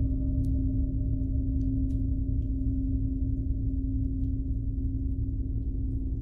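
Tibetan gongs ringing in a sustained drone: a steady low hum over a deep rumbling wash, with a higher overtone fading out about two seconds in.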